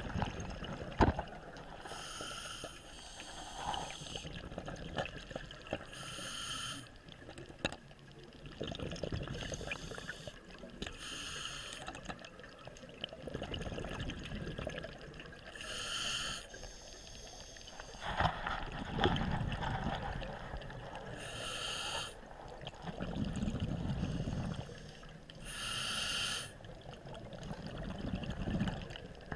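Scuba regulator breathing heard underwater through the camera: a short hiss as each breath is drawn, alternating with a lower burble of exhaled bubbles, about one breath every four to five seconds.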